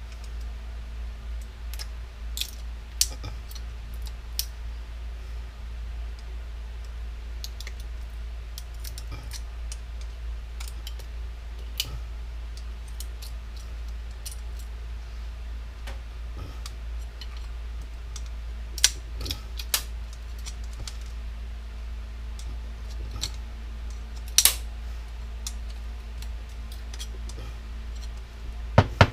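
Scattered light clicks, taps and clinks of small metal and plastic parts and hand tools being handled while taking apart a power washer, with a few louder clacks, over a steady low hum.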